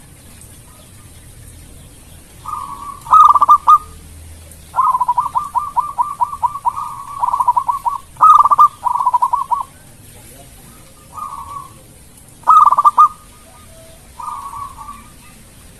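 Zebra dove (perkutut) singing: several phrases of quick, staccato cooing notes. The longest is a run of rapid notes starting about five seconds in. A few phrases are fainter than the rest.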